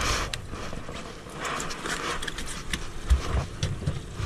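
Scattered knocks, clicks and bumps of fishing gear and feet being handled on a small boat's deck, with a few low thuds about three seconds in, over a background hiss.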